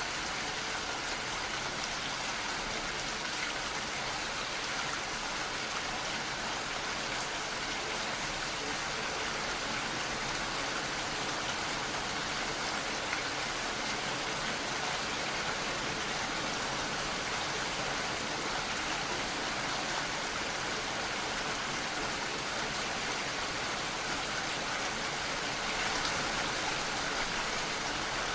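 Steady rainfall, an even hiss of drops with no break, swelling slightly near the end.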